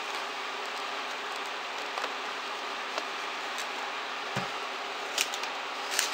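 Borax powder being poured from its cardboard box into a metal measuring cup over a plastic tub, with light rustling and a few small clicks and taps of cup and box, the sharpest near the end, and a short low thump about four seconds in. Under it runs a steady background hum.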